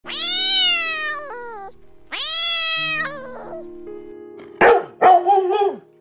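A cat meows twice, two long drawn-out meows that drop in pitch at the end. Then a dog barks about three times near the end, over soft background music.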